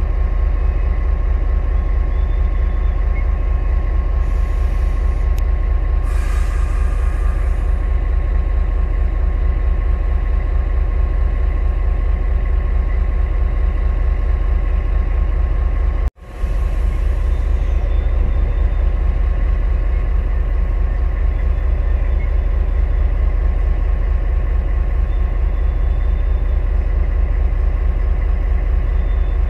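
Taiwan Railways R22 diesel-electric locomotive idling steadily while standing, a deep engine rumble with a faint steady whine. Short hisses of air come about 4 and 6 seconds in and again just after the sound cuts out for an instant about halfway through.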